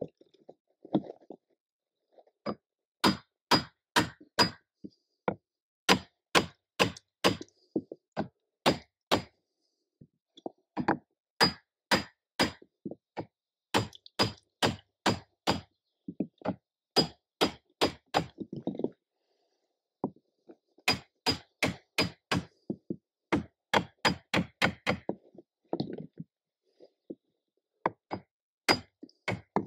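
Hammer blows on a wooden block, driving the ribs of a birch bark canoe into place: sharp knocks in runs of about four to six, two or three a second, with short pauses between runs.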